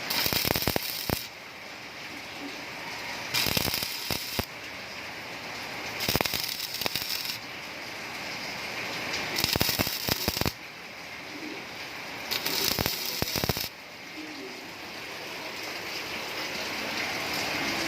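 Welding arc crackling and sputtering in five short bursts of about a second each, roughly every three seconds, with a softer steady hiss in between.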